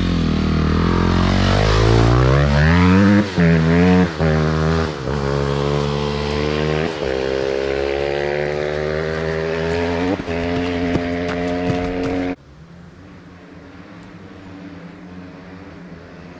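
Dirt bike engine at full throttle in a top speed run: the revs climb steeply and the rider shifts up several times, each shift a brief dip before the pitch climbs again, until it holds at high revs. About twelve seconds in the loud engine cuts off abruptly, leaving a fainter, lower steady engine sound.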